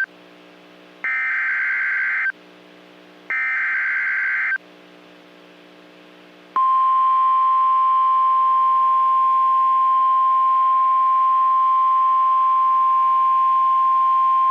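NOAA Weather Radio emergency alert signal. Two short bursts of warbling SAME digital header data come about a second apart. Then, about six and a half seconds in, the steady 1050 Hz warning alarm tone starts, signalling that a warning follows.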